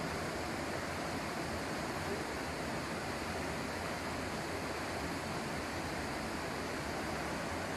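River water rushing over a low weir and shallow rapids: a steady, even rush.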